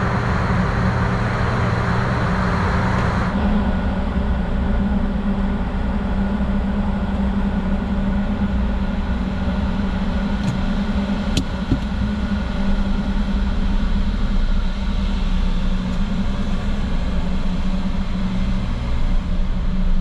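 Car running, heard from inside the cabin: a steady low engine and road hum. A brighter hiss drops away about three seconds in, and there is a faint click near the middle.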